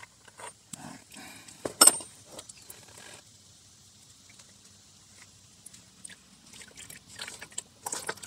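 Ratchet and socket clicking and clinking on the Toyota Prius's plastic cartridge oil filter cap, with one sharp metal clink about two seconds in as the tool comes off, then a quiet stretch while the loosened cap is turned by hand, and more short scraping handling noises near the end.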